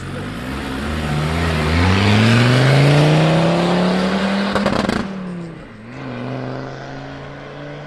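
Land Rover Discovery 2 Td5 five-cylinder turbodiesel accelerating hard away, its engine note rising for a few seconds. About five seconds in the note drops suddenly with a few clicks, then the engine runs on lower and steadier as the truck moves off.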